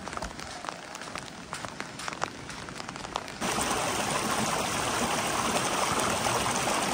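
Rain: separate drops striking a surface, then about three and a half seconds in the sound switches suddenly to a louder, steady rush of heavy rain.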